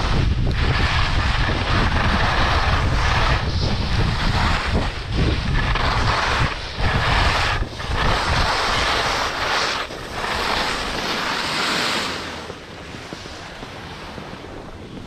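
Wind buffeting the microphone and skis hissing and scraping over firm, fast-groomed snow during a fast downhill run. The hiss breaks off briefly a few times between turns, and everything gets quieter for the last few seconds.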